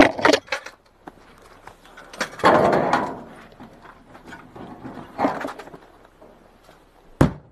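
Rustling and knocking of clothing and gear as men are patted down, in a few irregular bursts, with one sharp knock near the end.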